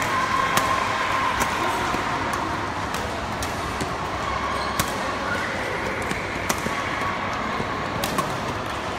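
Badminton rally in an indoor sports hall: sharp racket hits on the shuttlecock, about one a second, from this and neighbouring courts. Shoes squeak on the court floor, over a steady murmur of the hall crowd.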